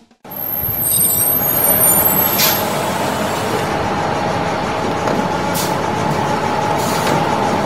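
A bus engine running steadily, with a high squeal in the first couple of seconds and short air-brake hisses about two and a half seconds in and twice more later.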